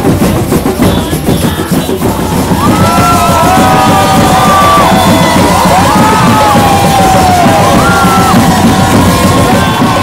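Drum circle of hand drums beating a steady rhythm, with a saxophone and a crowd's long whoops and yells rising over it from about two and a half seconds in.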